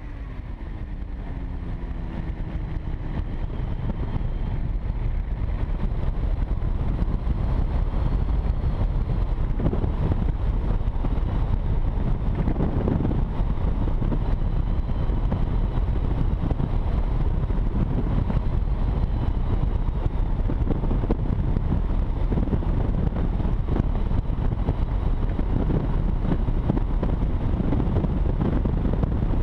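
Weight-shift ultralight trike in flight: its pusher engine and propeller running steadily under heavy wind rush on the wing-mounted microphone. The sound fades up over the first several seconds and then holds steady.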